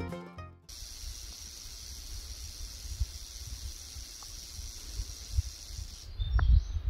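Timber rattlesnake rattling: a steady high buzz that starts about a second in and cuts off near the end, the snake's warning at being approached. A low rumble runs under it, and background music fades out at the very start.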